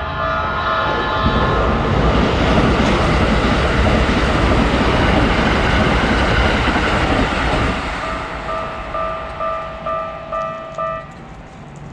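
Japanese railroad crossing warning bell ringing in a steady repeating electronic ding, drowned for several seconds by the loud rushing noise of an electric train passing through the crossing. The bell is heard again once the train has gone by, and it stops about a second before the end.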